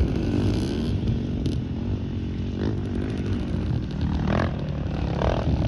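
Dirt bike engines running and revving hard, one bike under heavy throttle as it climbs a steep rock slope; the engine note swells and falls.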